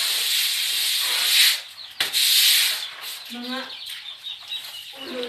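Steady hiss of water spraying onto the coop's wet concrete floor. It cuts off about one and a half seconds in, comes back briefly, then stops. Chickens in the cages cluck after it, once past the middle and again near the end.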